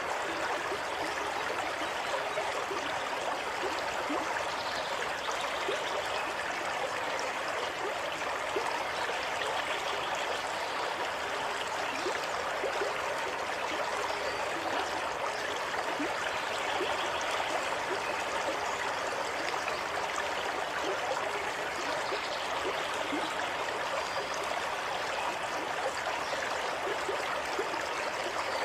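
Water running steadily in a stream, an even rushing with small trickling and gurgling flecks through it.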